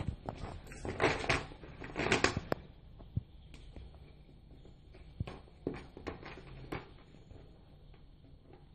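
Shiny plastic shopping bag rustling and crinkling as a cat paws, noses and climbs on it, in bursts over the first few seconds, then a few softer crinkles and taps.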